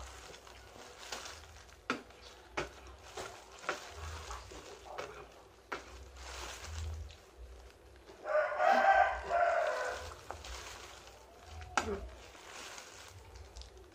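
A rooster crowing once, about eight seconds in, a call of nearly two seconds in two joined parts; it is the loudest sound here. Scattered faint clicks come before and after it.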